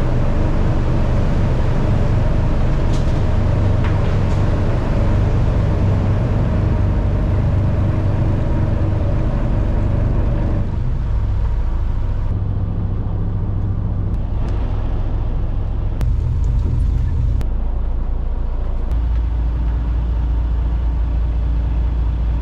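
A small fishing boat's engine runs steadily while the boat is under way, a low, even drone. About ten seconds in, the sound turns duller as its higher part falls away.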